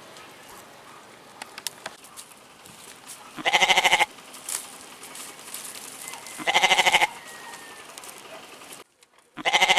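Domestic goats bleating three times, each a short wavering call about half a second long, about three seconds apart.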